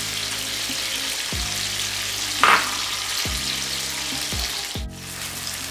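Diced potatoes and tomatoes sizzling steadily in hot oil in a karahi, with a brief louder noise about two and a half seconds in.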